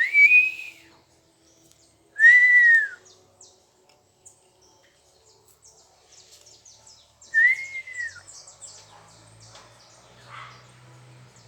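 Three loud whistles, each rising and then falling in pitch and lasting under a second, with small birds chirping faintly throughout.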